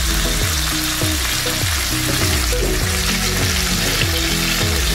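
Chicken pieces sizzling and crackling in their own rendered fat in a stainless electric skillet, with no oil added. Background music with a steady low beat plays underneath.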